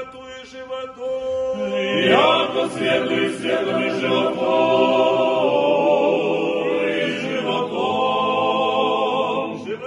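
The two choirs of an Orthodox monastery, men's voices joined into one, singing a cappella chant. A few voices hold a low note, then about two seconds in the full choir sweeps up into long held chords, changing notes a few times before stopping just before the end.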